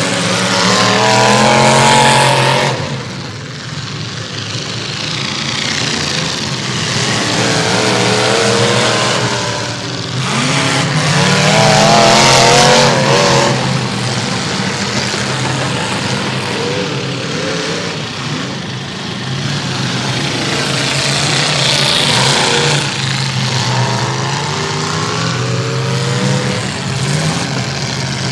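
Several big derby cars' engines revving hard in a figure-eight race, pitch rising and falling as they accelerate and lift. The sound swells loudest as cars pass about 2, 12 and 22 seconds in.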